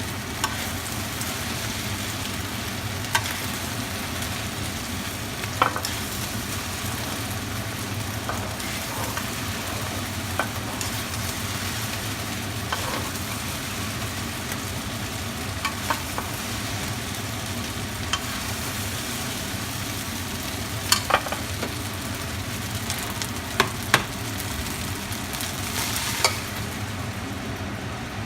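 Stir-fried rice noodles sizzling steadily in a hot pan as they are stirred and tossed, with a sharp clink of the spatula against the pan every few seconds.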